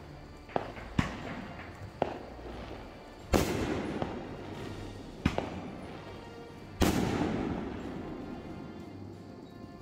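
Aerial fireworks exploding: six sharp bangs at irregular intervals. The two loudest, about three and seven seconds in, each trail off slowly over a couple of seconds.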